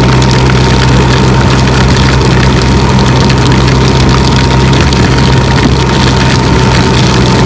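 Can-Am Spyder three-wheeled motorcycle's engine running steadily while riding, under a constant rush of wind and road noise.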